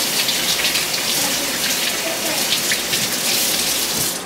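Kitchen tap running, with water splashing over hands being washed in the sink; the water is shut off abruptly near the end.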